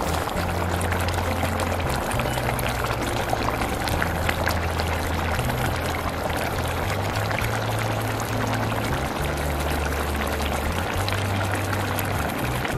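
Pan of potato and brinjal curry bubbling and sizzling, a steady hiss full of small pops, with background music and a low bass line underneath.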